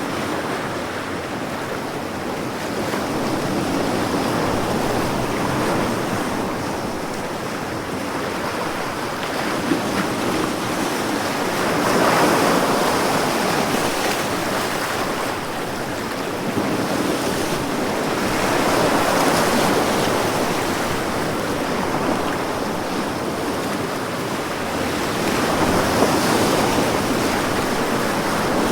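Ocean surf: large waves breaking on the shore in a continuous rush, swelling and easing with each wave every six or seven seconds.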